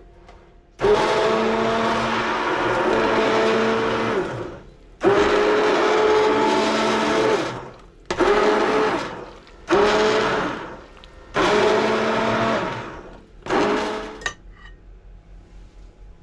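Hand-held stick blender pureeing a pot of cooked soup: its motor whine comes in six bursts, the first two about three seconds each and the later ones a second or so.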